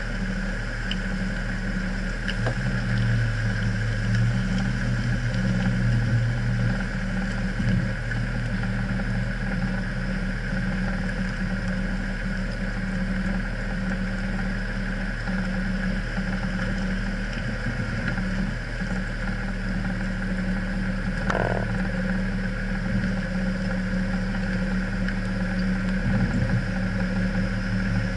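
Off-road SUV engines idling close by with a steady low hum, the note rising for a few seconds near the start as one of the 4x4s is given some throttle.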